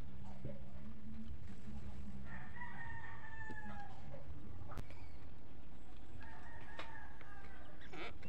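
A rooster crowing twice, each crow a long held call, about two seconds in and again near the end. A steady low hum runs underneath, with a couple of faint clicks.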